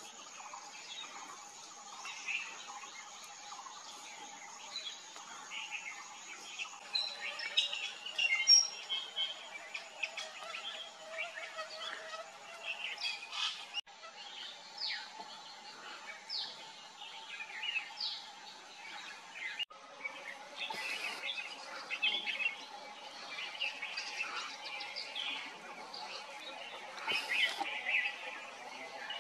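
Many small birds chirping and calling at once, with short, overlapping chirps and a few quick whistles. The calls are loudest about eight seconds in and again near the end.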